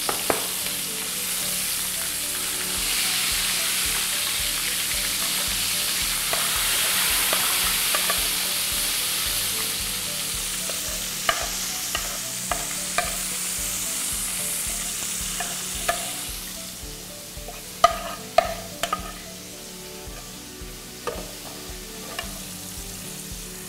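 Fish fillets frying in hot oil in a frying pan: a steady sizzle that dies down after about sixteen seconds. Several light clinks of tongs and dishes come in the second half.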